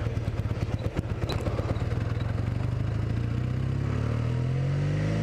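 Kawasaki 440 LTD motorcycle's parallel-twin engine running under way, its revs climbing over the last second or so as the bike accelerates.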